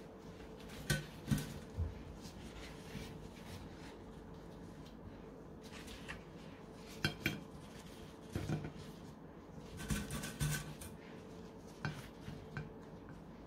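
Fried qatayef pastries being set down and shifted on a ceramic plate: scattered light knocks and clinks against the plate, coming in small clusters about a second in, around the middle and near the end.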